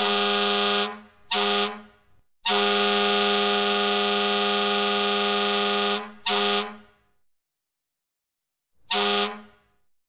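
Goal horn blowing in a series of blasts on one steady, low, rich tone. A long blast ends about a second in, then a short one, then a long blast of about three and a half seconds, then two more short blasts. Each blast cuts off into a brief ringing tail.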